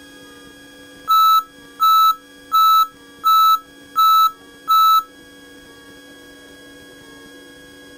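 An electronic beeper in the cockpit sounds six evenly spaced high beeps, about three-quarters of a second apart, over the light aircraft's steady engine hum.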